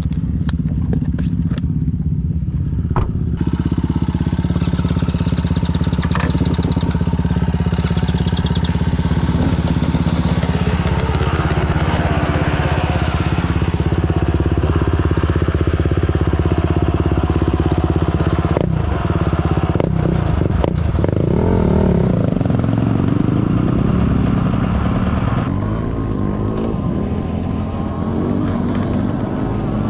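Dirt bike engine running steadily, with the revs shifting briefly a little past the middle. A few sharp clicks come in the first few seconds.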